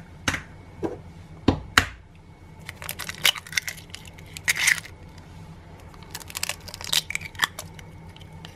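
Eggs being cracked against a bowl one after another: several sharp knocks of shell on the rim, followed by bursts of crackling as the shells break apart.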